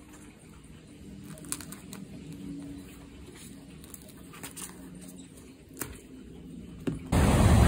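Faint snaps and rustles of small bananas being broken off a bunch, over a faint low hum. About seven seconds in, an abrupt cut to loud wind on the microphone and ocean surf.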